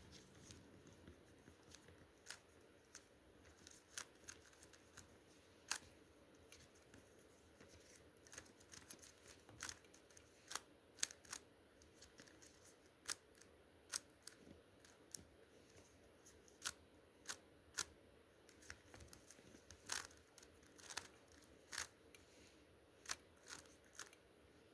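Faint, sharp plastic clicks of a GAN speed cube's layers being turned during a Rubik's Cube solve. They come irregularly, about one or two a second.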